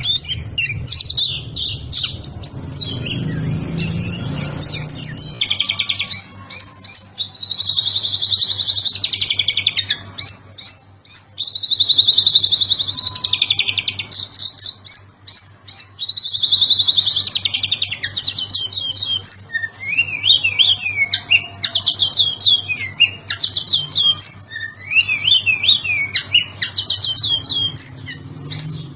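Oriental magpie-robin (kacer) singing almost without pause: a fast, varied song of rapid trills, chattering runs and quick rising whistles, in the busy 'ngobra' style with chopped-off 'patah' phrases.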